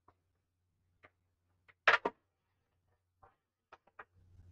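Handling noise from a DJ controller's power supply cable and plug: a few light clicks and taps scattered through, with a louder quick double knock about two seconds in.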